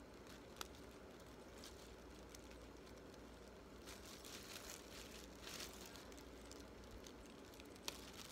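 Near silence: faint steady background, broken by two sharp clicks, one about half a second in and one near the end, and a few seconds of soft rustling in the middle.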